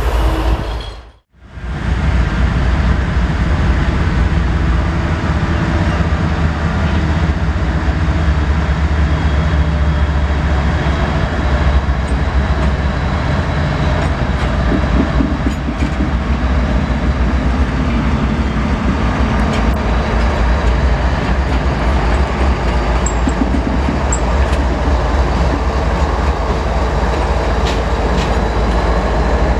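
Several CSX diesel-electric locomotives running light, with no cars, rolling slowly past close by: a steady low engine rumble with wheel and rail noise. Just before it, the sound cuts to silence for a moment about a second in.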